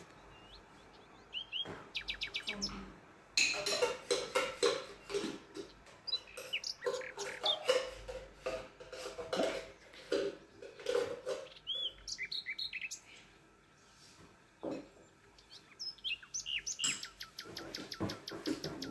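A small bird chirping and twittering in short calls, over a rapid run of light clicks from a spoon scraping a tin and stirring in a bowl.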